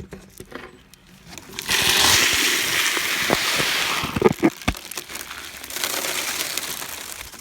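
Bird seed pouring from a bag with a steady, loud rattling hiss for about two seconds, followed by several sharp knocks and a quieter stretch of pouring or rustling near the end.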